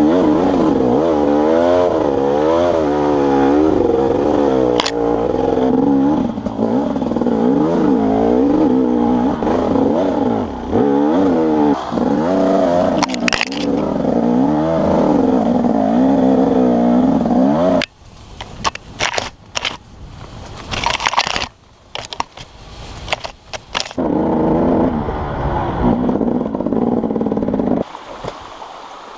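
Husqvarna enduro motorcycle engine revving up and down over rough ground. About two-thirds of the way in the engine sound breaks off abruptly into several seconds of scraping and knocking as the bike goes down into the brush. The engine then runs steadily for a few seconds before falling away near the end.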